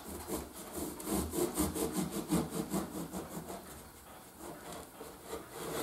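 Bread knife sawing back and forth through a loaf of homemade bread, the blade rasping through the crust in quick strokes, several a second, that fade out about halfway through as the slice comes free.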